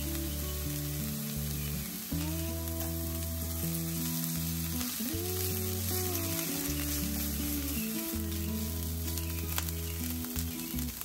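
Diced onions and tomato paste sizzling in a hot nonstick frying pan as a spatula stirs them through. Soft background music with long held low notes plays underneath.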